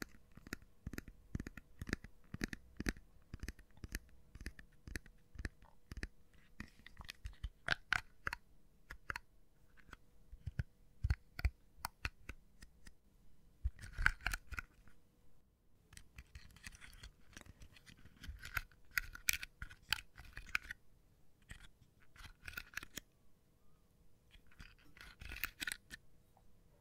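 A hairbrush tapped and scratched close to the microphone: many quick, irregular taps, with short bouts of scratchy rustling several times.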